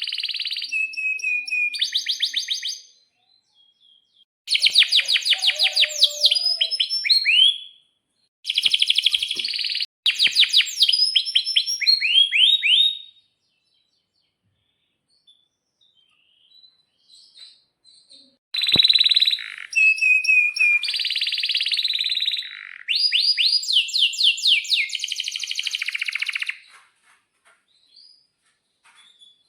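Male domestic canary singing in phrases of fast rolling trills and rapid rising sweeps. The song breaks off for about five seconds midway, then resumes.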